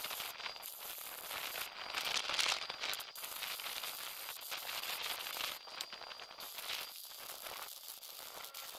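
Electric arc welding a steel patch plate onto a cracked truck chassis rail: the arc makes a steady crackling hiss with spatter.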